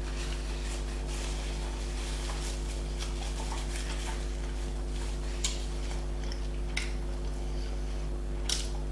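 Close-miked eating of a doner kebab: chewing and small handling noises, with three sharp clinks in the second half. A steady low electrical hum runs underneath.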